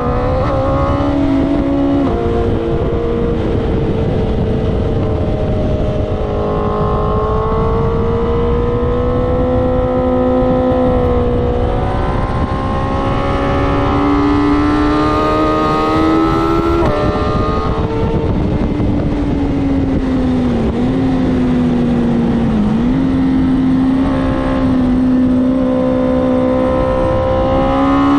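Onboard sound of a BMW S1000RR inline-four sportbike ridden hard on a racetrack. The engine note climbs in pitch through long pulls and drops with gear changes and off-throttle moments, over heavy wind rush on the camera microphone.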